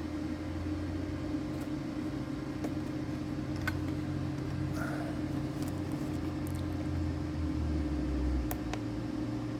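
Steady low mechanical hum with a constant drone underneath, and a few faint clicks scattered through it, about three or four seconds in and near the end.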